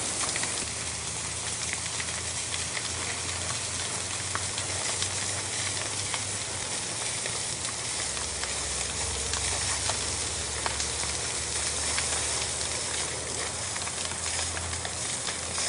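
Steady hissing rush of a burning building being hosed down, with scattered crackles. A low rumble underneath grows louder about eight seconds in.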